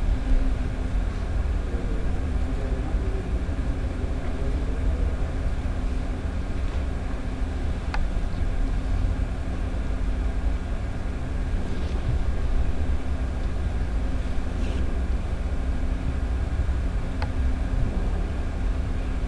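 Steady low rumble with a faint hum over it, and two faint clicks, about eight seconds in and near the end.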